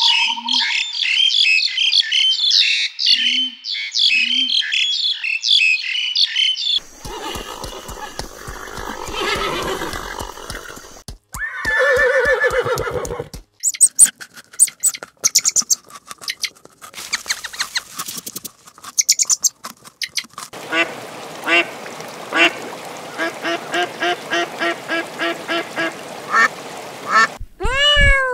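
A run of different animal sounds: fast, high bird chirping for the first several seconds, then sharp clicking like a rabbit chewing, then a steady string of short calls about twice a second, and a kitten meowing near the end.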